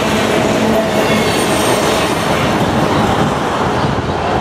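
Freight train of covered hopper cars rolling past close by: a steady rumble and clatter of steel wheels on the rails, easing a little near the end as the last car goes by.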